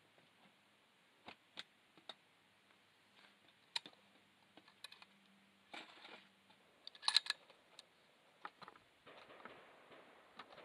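Light scattered clicks and rattles from handling a Browning X-Bolt bolt-action rifle on a shooting bench, with the loudest metallic clatter about seven seconds in as the bolt is worked.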